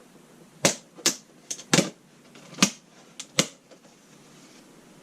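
A new chainsaw chain's packaging being popped open: a string of sharp snaps and clicks, about seven in the first three and a half seconds.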